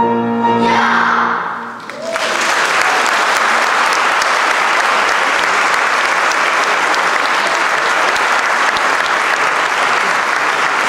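A children's choir holds its final chord, which ends about two seconds in; then an audience applauds steadily.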